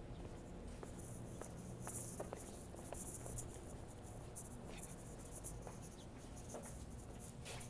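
Faint rustling and handling noise from a hand-held phone carried while walking on a concrete sidewalk, over a steady low rumble, with a few soft scattered taps.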